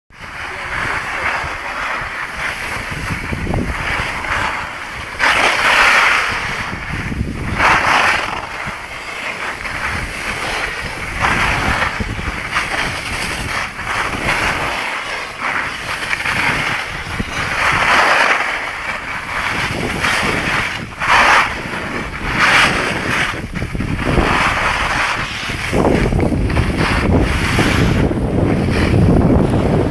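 Skis hissing and scraping over packed snow, swelling into louder swishes every few seconds as the skier turns, with wind buffeting the microphone, heavier near the end.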